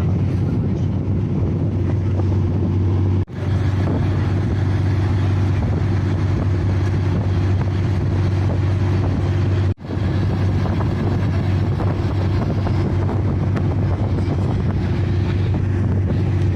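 A river passenger launch's engine running steadily: a loud, constant deep drone that drops out for an instant twice, about three and ten seconds in.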